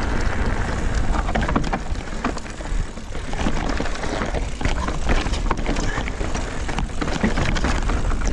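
Mountain bike riding a rocky singletrack: tyres rolling over loose stones and the bike rattling, with frequent short sharp knocks. Low wind rumble on the camera's microphone runs underneath.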